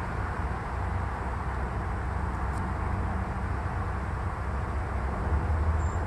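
Steady low rumble and hiss of outdoor background noise.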